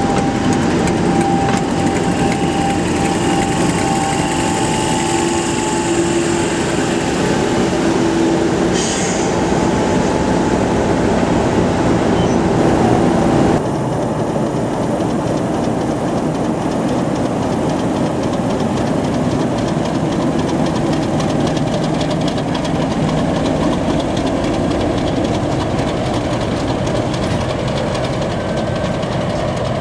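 Class 50 diesel locomotive's English Electric 16-cylinder engine running at close range, with a steady high whine over the first half that stops abruptly about 13 seconds in. A brief hiss comes about nine seconds in.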